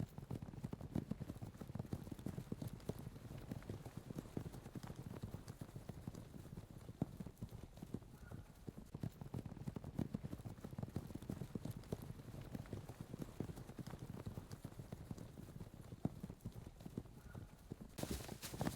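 Several horses galloping, their hoofbeats dense and overlapping as they draw closer. Near the end the hoofbeats turn brighter and louder.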